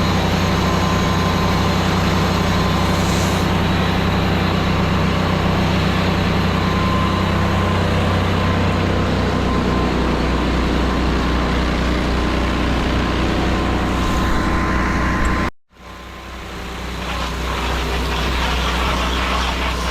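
Engine of a pressure-washing rig running steadily at a constant speed. About fifteen seconds in the sound cuts out completely for a moment, then comes back gradually.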